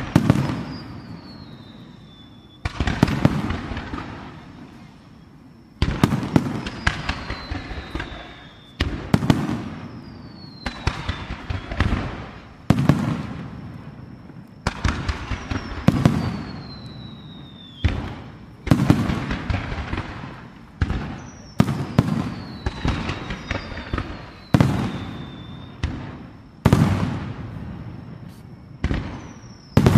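Japanese aerial firework shells bursting overhead: a run of about two dozen sharp booms, one every one to three seconds and coming closer together in the second half, each trailing off in a crackling echo.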